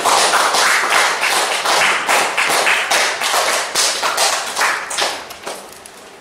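Applause from a small audience, dense rapid clapping that thins out and dies away near the end.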